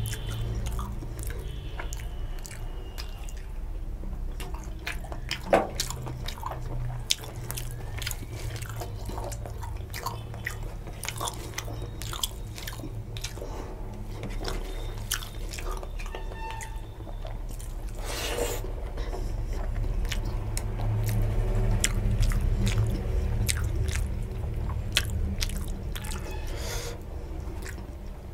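Close-miked eating sounds: a person chewing rice and curry with wet mouth smacks and clicks, along with fingers squishing and mixing rice and curry on a steel plate.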